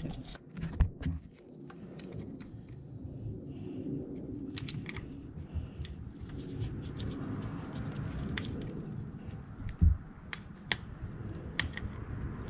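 Clicks, taps and scraping of a screwdriver and gloved hands prying a plastic hose connector loose in an engine bay, with a louder knock about ten seconds in.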